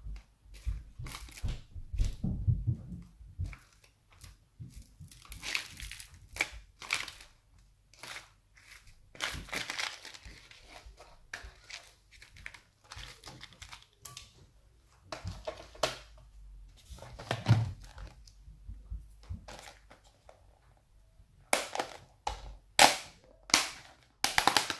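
Rhinestone chain and plastic gems rattled and sifted by hand in a clear plastic tub: irregular clicks and clatters with some crinkling, and a louder run of sharp knocks and plastic clunks near the end.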